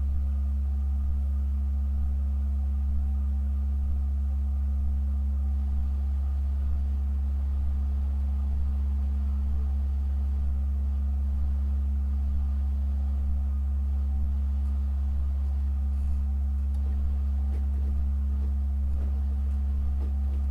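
Pipe organ holding a deep low note with a fainter, higher tone sounding above it, steady and unchanging.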